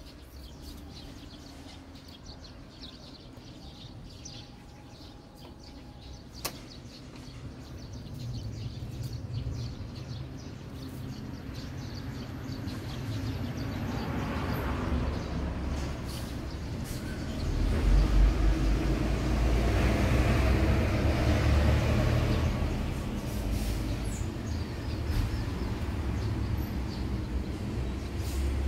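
Low rumble of a passing heavy vehicle, growing louder about halfway through and staying strong, with a single sharp click early on.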